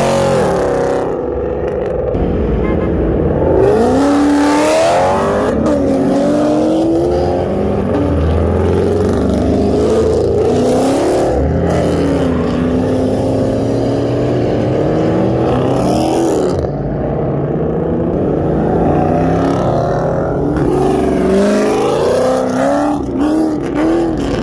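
Several V8 muscle-car engines running and revving, their pitches rising and falling over one another as the cars accelerate and ease off.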